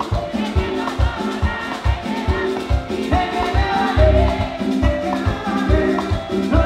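Live salsa band playing, with hand percussion, a pulsing bass and a lead singer.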